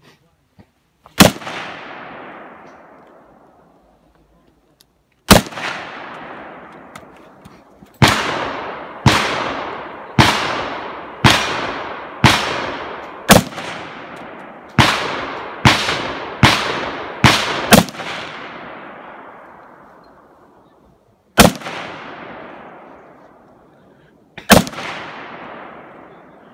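About fifteen gunshots fired from the prone position, each with a long echoing tail. Two single shots come about four seconds apart, then a quick string of about eleven shots roughly a second apart, then two more spaced shots near the end.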